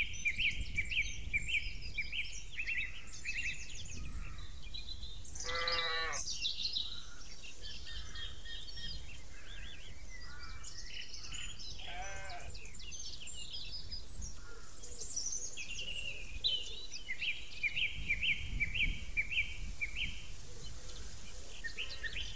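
Small birds singing throughout, with quick repeated chirps and trills, and a sheep bleating twice, about six and twelve seconds in, over a low steady rumble.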